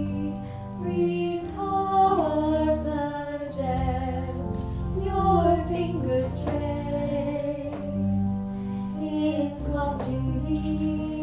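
Church choir singing a slow song over sustained low accompaniment, the voices holding long notes that glide from one pitch to the next.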